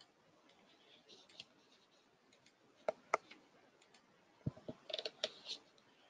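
Scattered small clicks and taps over quiet room tone: two sharp clicks about three seconds in, then a quick run of clicks and soft knocks near the end.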